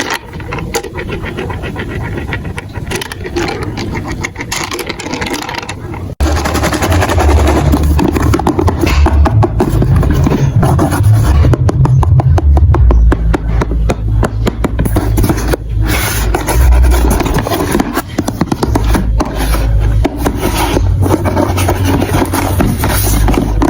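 Marbles rolling and clattering through a plastic marble-run track, a dense rattle of many small clicks. About six seconds in it turns suddenly louder, with a deep rolling rumble under the clatter.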